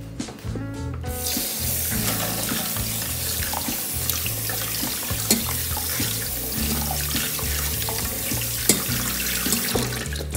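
Tap water running hard into a stainless steel sink, splashing over boiled pork trotters in a colander as they are rinsed by hand, with a few small knocks. The water comes on about a second in and stops just before the end.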